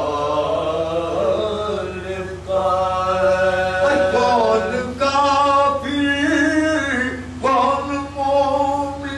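A man singing an Urdu salaam, a devotional poem, in long held notes.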